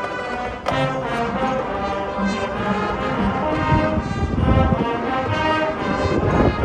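Marching band playing, its brass section sounding full held chords that shift every second or so.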